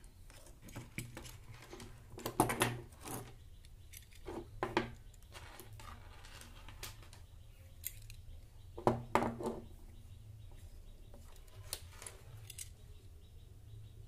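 Handling noise of a small plastic doorbell switch, wires and a screwdriver being worked on a wooden table: scattered clicks and short rattles, loudest about two and a half seconds in and again about nine seconds in.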